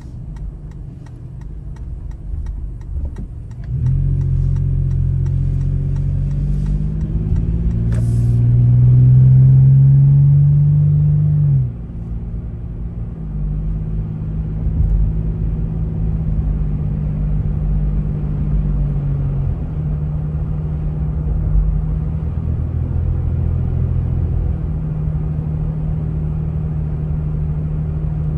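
Car engine and road noise while driving. For the first few seconds it is quiet with a fine regular ticking. Then the engine note rises as the car accelerates, drops sharply about twelve seconds in, and settles into a steady cruise.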